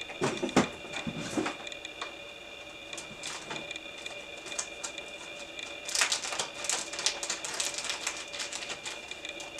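Light clicks and rustles of hands working thread and dubbing at a fly-tying vise, with a denser run of small rapid clicks about six seconds in. A faint steady whine sits underneath.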